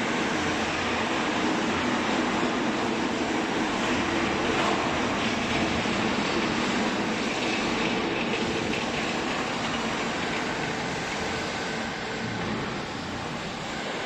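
Vertical hydraulic cloth baler running, a steady mechanical noise that eases slightly near the end.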